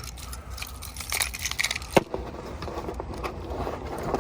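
Rustling and crinkling as the new all-weather floor mats and their packaging are handled, with scattered clicks and a sharp knock about two seconds in.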